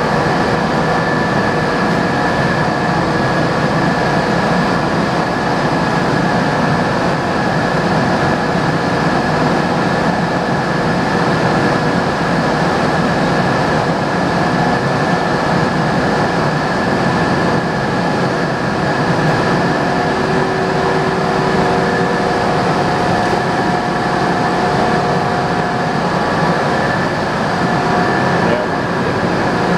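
Mazak M5 CNC lathe powered up and running, giving a steady mechanical noise with several steady whining tones held at an even level.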